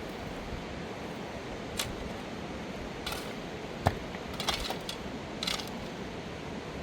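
A handful of short, sharp clicks and clinks of hard objects knocking together, the loudest about four seconds in, over a steady rushing noise.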